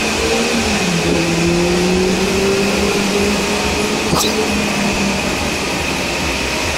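A steady, loud machine drone: an even rushing noise with a low hum that steps down slightly in pitch about a second in, and a single sharp click about four seconds in.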